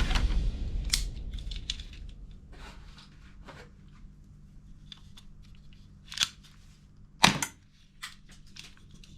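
Toy guns being handled and fired: scattered small mechanical clicks and snaps, with two louder sharp shots about six and seven seconds in.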